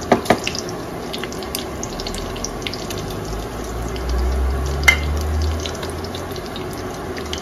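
Butter and Japanese mayonnaise sizzling in a nonstick frying pan as they melt, stirred with a silicone spatula that knocks against the pan a few times.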